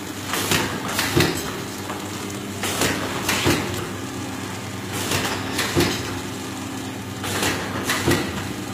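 Masala powder packing machine running: a steady motor hum with a group of two or three sharp metallic clacks about every two and a half seconds as the machine cycles.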